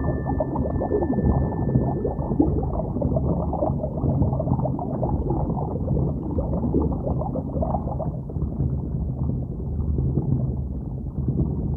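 Muffled underwater water noise picked up by a submerged camera: a steady churning and gurgling of water, dull and cut off in the highs, with a low rumble beneath.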